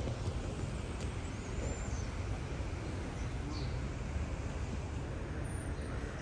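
Steady low hum and murmur of a large crowd in a big, echoing mosque prayer hall, with no call-to-prayer voice in it and a few faint high chirps.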